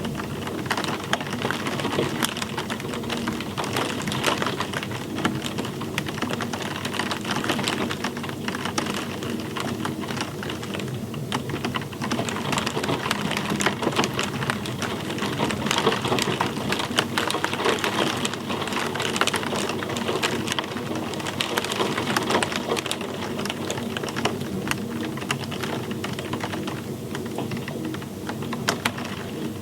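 Steady rain, with many separate drops striking a hard surface as a dense, irregular clicking over a continuous hiss.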